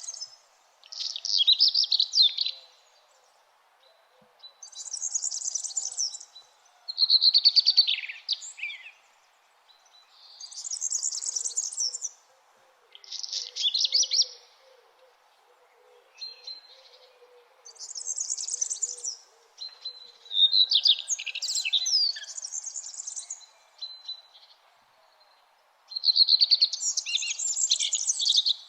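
Songbirds singing: short, high-pitched phrases of rapid chirps and trills, one every two or three seconds, some higher and some lower in pitch, over a faint steady background noise.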